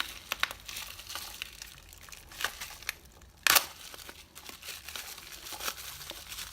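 Plastic bubble wrap being handled and unwrapped, crinkling and crackling in irregular bursts, with one louder rustle about three and a half seconds in.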